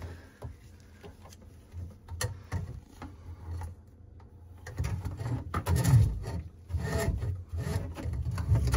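Rubbing and scraping handling sounds as a braided faucet hose is pushed by a gloved hand into the end of a kitchen sink drain pipe. There are scattered clicks at first, then louder bumping and knocking from about halfway through.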